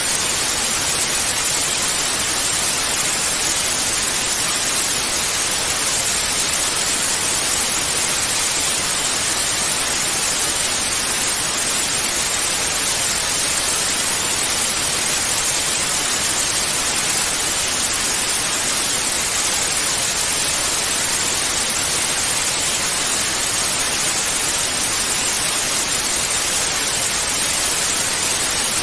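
Analog television static: a steady, even hiss of white noise, strongest in the high range, with no tone, rhythm or change.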